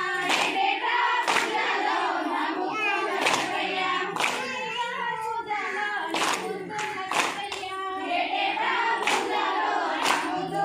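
Group of women singing a Telugu Bathukamma folk song and clapping in time while dancing in a circle, about one clap a second.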